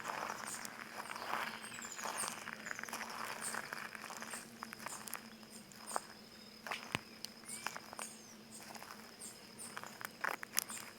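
Footsteps crunching over plants and stony ground, heaviest in the first few seconds and then sparser, with birds chirping and a steady high thin tone behind.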